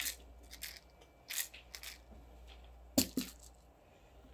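Rustling and scuffing noises with a sharp knock about three seconds in: a kitten shifting about and being handled on a kitchen weighing scale.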